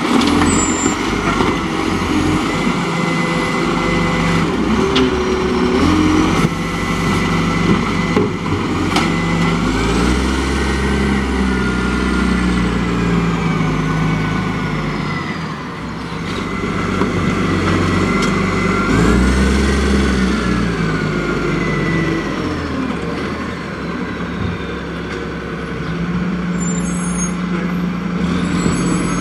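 Diesel engines of side-loading garbage trucks running. The nearer truck's engine revs up and back down twice, about ten seconds in and again near twenty seconds, with a few sharp knocks in between.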